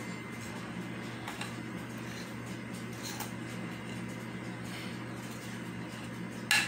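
Spoon scraping cake batter out of a ceramic mixing bowl into a bundt pan: faint, soft scrapes over a steady low hum, then one sharp clack of the spoon against the bowl near the end.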